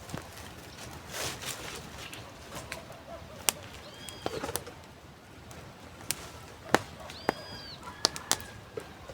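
Birds calling: short arched whistled notes about four seconds in and again around seven seconds, among a few sharp clicks over a faint steady outdoor background.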